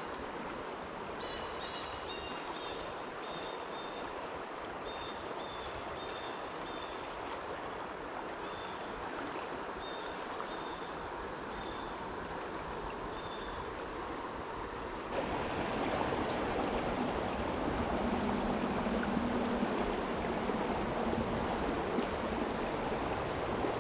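Creek water rushing steadily over a riffle. About 15 seconds in it abruptly becomes louder and brighter. Early on, a run of short, high-pitched chirps sounds faintly over the water.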